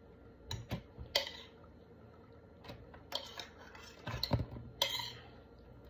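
A spoon clinking and scraping against a pan and plate as stir fry is spooned out: a series of irregular clinks and knocks, the loudest cluster about four seconds in.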